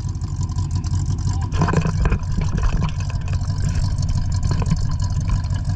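Jeep engine running steadily at low revs with a low, even rumble, with a brief louder irregular patch about two seconds in.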